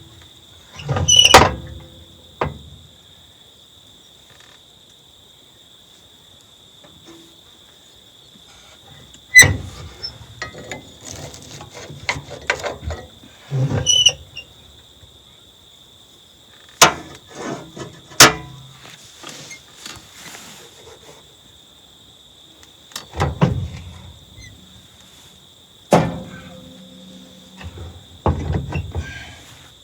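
A steady, high-pitched insect drone, with a series of separate knocks and clatters every few seconds, some with squeaks.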